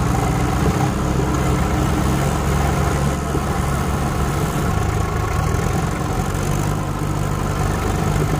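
A large vehicle engine idling steadily, a low even running sound.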